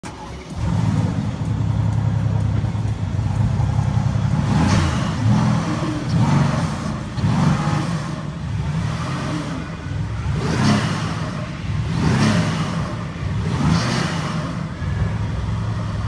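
Mercedes-AMG GT S twin-turbo V8 running while parked, with a deep idle and about six short throttle blips that rise and fall. The engine is tuned for a refined note rather than sheer loudness.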